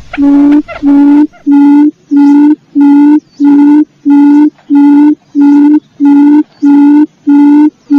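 Wild quail calling in a lure recording: a long, even series of low hooting notes, each held on one steady pitch, about one and a half notes a second. The first few notes are less even in shape before the series settles into an identical repeated note.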